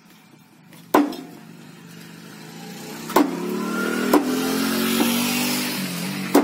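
Meat cleaver chopping raw chicken on a wooden log block: five sharp chops, irregularly spaced, the loudest sounds here. From about two and a half seconds a passing motor vehicle's engine swells, loudest around five seconds, then fades and drops in pitch.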